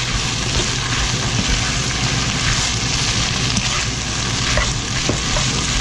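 Pork intestines and sliced onion in chili sauce sizzling in a nonstick frying pan as they are stir-fried, with a steady hiss and a few light knocks and scrapes of the spatula against the pan.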